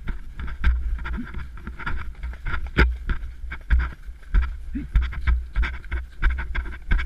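Footfalls of a ridden horse on a snowy trail, a run of irregular thuds a few times a second, under a heavy low rumble from the camera riding along on the rider.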